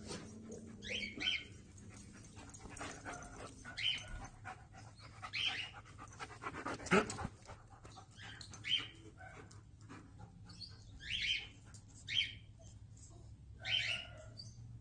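A dog making short high calls, about one every second or two.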